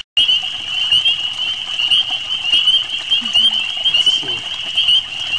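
A dense chorus of frogs, a steady high-pitched peeping that never lets up, cut off for a split second at the very start.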